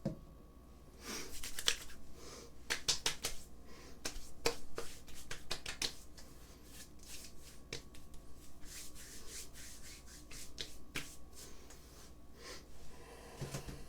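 Hands rubbing and patting aftershave onto freshly shaved skin: a run of sharp slaps and rubbing, busiest in the first half and lighter towards the end.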